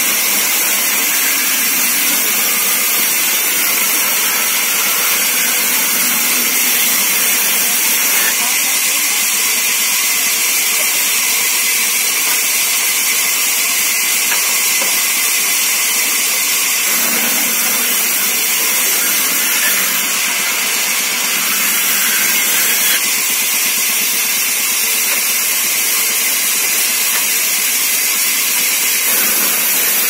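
Large 24-inch band saw (araa machine) running and ripping a timber plank lengthwise: a steady, loud hissing whir of the blade through the wood.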